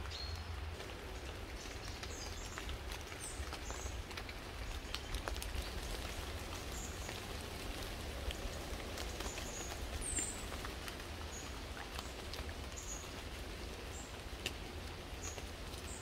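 Woodland ambience: a steady soft hiss with scattered small ticks, a low rumble underneath, and a few faint, short bird chirps.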